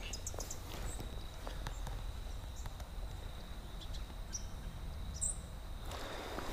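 Quiet outdoor ambience: a few short bird chirps over a faint steady high-pitched tone and a low rumble, with a rise in hiss about six seconds in.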